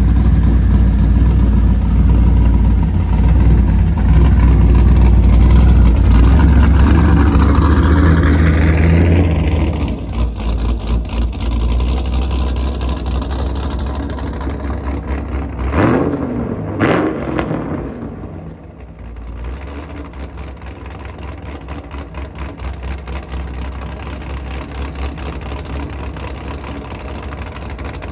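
Pontiac G8's 376 stroker V8 pulling away under throttle, a loud deep exhaust note whose pitch climbs as it accelerates. About halfway through come two quick, sharp revs a second apart. The engine then settles to a quieter, steady running note as the car moves off.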